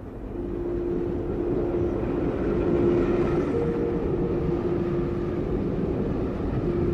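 Passenger train running: a steady low rumble with a held hum that comes and goes.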